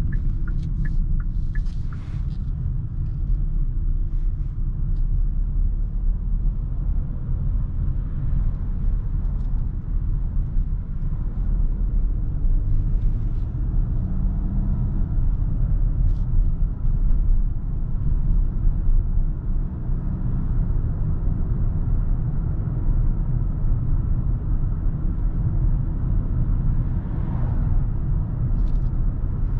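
Kia Sorento with the 2.2-litre CRDi diesel being driven: a steady low rumble of engine and road noise, with a few faint clicks near the start.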